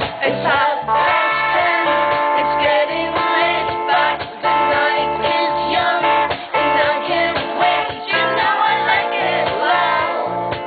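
Live rock band playing: a woman sings lead over strummed guitar and held keyboard notes, with a steady drum beat underneath.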